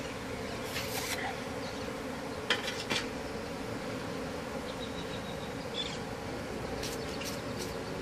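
Many honey bees buzzing in a steady hum, a colony still unsettled just after its comb was cut out and moved into a new box. A few brief clicks sound over the buzzing.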